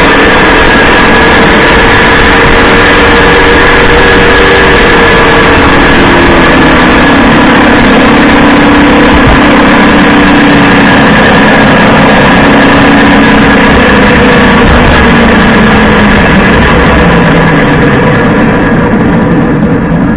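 Toyota HiAce 200-series van on the move: loud tyre road noise with drivetrain tones that fall in pitch over the second half as the van slows. Under the road noise is the rattling ('karakara') that the owner traces to the rear differential, with the hub bearings already replaced and ruled out.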